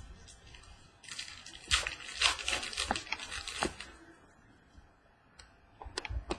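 Football trading cards being slid across and flicked against one another in the hand: a dry rustling and scraping of card stock for about three seconds, then a few light clicks near the end.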